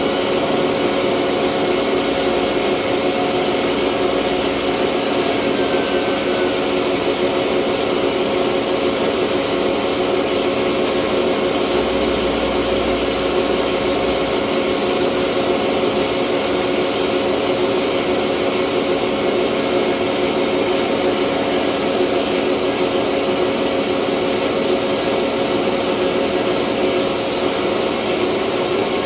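Rice mill running steadily: a loud, even machine drone with a constant hum, unchanging throughout.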